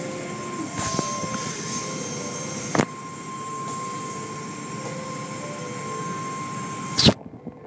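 Automatic tunnel car wash heard from inside the car: water spray and soft-cloth curtains washing over the car, with steady machinery noise and a constant whine. A few sharp knocks break in; the loudest comes near the end, just before the sound briefly drops out.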